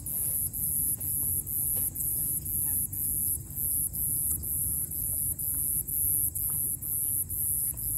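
Insects chirping steadily in a high-pitched rhythmic trill, about two pulses a second.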